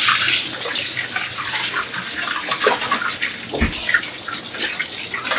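Water rushing and splashing in a kitchen, loudest at the start, with scattered clinks and knocks of pots and utensils.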